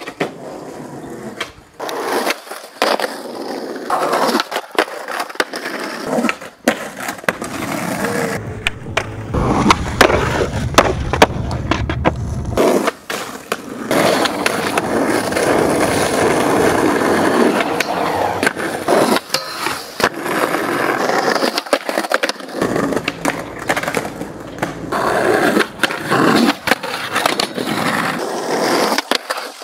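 Skateboard wheels rolling on rough asphalt and concrete, broken by many sharp clacks of the board striking the ground, in a run of separate takes.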